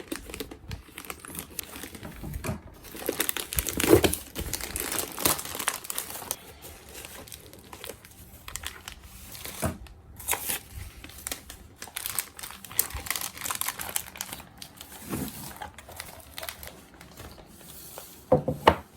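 Parcel packaging being torn open and unwrapped by hand: irregular crinkling, rustling and tearing, with a sharper knock about four seconds in and another about ten seconds in.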